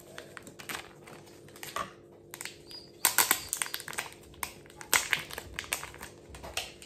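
A small plastic tackle packet crinkling and clicking as it is handled by hand, in quick clusters about three seconds in and again about five seconds in.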